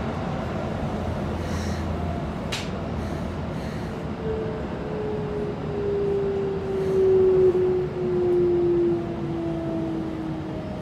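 Keikyu 600 series train's Toyo GTO-VVVF inverter and traction motors whining as the train brakes for a station: a tone that falls slowly in pitch from about four seconds in, over steady rail and running noise heard inside the cabin. A single sharp click comes about two and a half seconds in.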